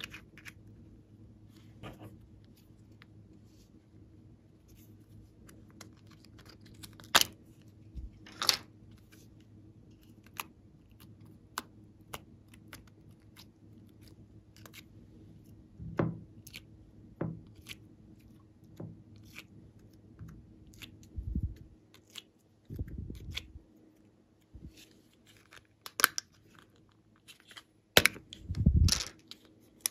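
Close handling of small plastic containers, lip gloss tubes and a plastic pill organizer, giving scattered sharp clicks and snaps of caps and lids. In the second half come a few longer, duller crunchy sounds.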